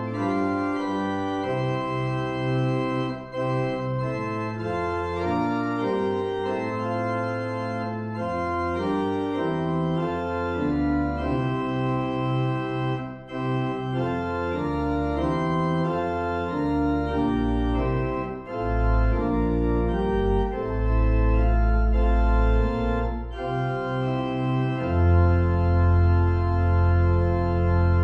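Organ playing a hymn tune in full chords that change about once a second, with no voices singing. Deep bass notes come in during the second half, and a loud, full chord is held near the end.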